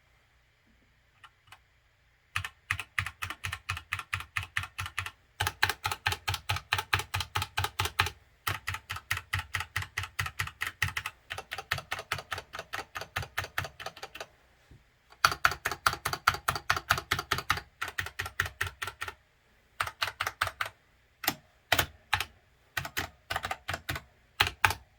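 Keychron K4 mechanical keyboard with Gateron Brown switches being typed on, in fast runs of even keystrokes broken by short pauses, with a few single keypresses near the end.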